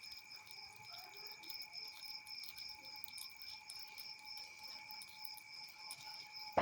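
Crickets and other night insects calling: a high note pulsing evenly several times a second over steady, higher and lower drones.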